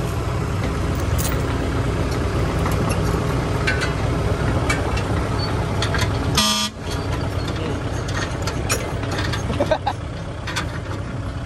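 Heavy diesel machinery running steadily under load during the recovery of a stuck dump truck, with a short horn toot about six and a half seconds in.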